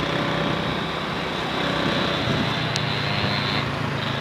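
Steady engine and road noise of a moving car, with a faint high steady whine that stops about three and a half seconds in.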